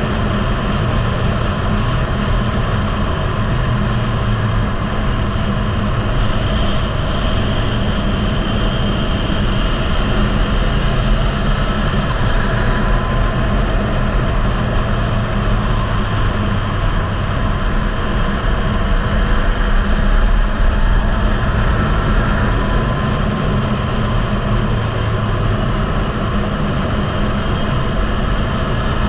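Heavy wind noise buffeting the microphone at track speed, with the Yamaha MT-09's three-cylinder engine running steadily underneath.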